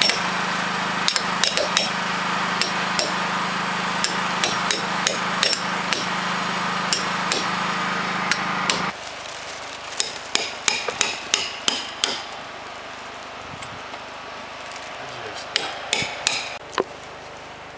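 Hammer striking a caulking iron to drive tow into the seams between logs: sharp, irregular taps, a few a second, over a steady hum. About halfway the hum drops away and the taps come in two quick clusters.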